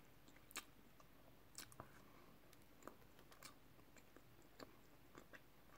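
A person chewing a mouthful of soft bread roll with ham, mouth closed: faint, with scattered small mouth clicks every half second or so.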